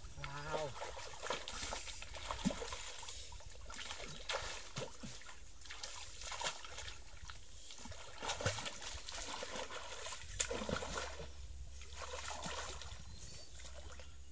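Water splashing and sloshing around a person wading chest-deep in a river and groping under the surface with their hands, in irregular splashes with trickling water between them.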